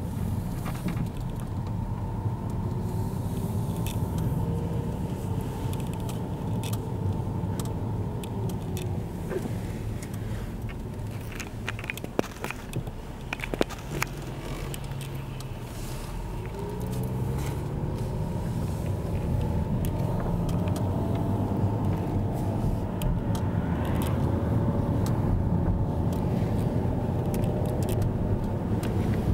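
Car cabin noise while driving: a steady low rumble of engine and tyres. About halfway through it goes quieter for a few seconds, with a few sharp clicks, then the engine's pitch rises as the car speeds up again.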